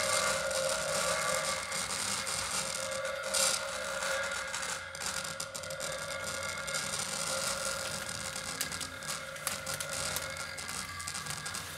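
Buzzy, crackling electronic sound from a bare speaker driven by a simple battery-powered Arduino circuit, with a few held tones, mixed with the rattling buzz of a vibrator bullet pressed against a large wooden slit block.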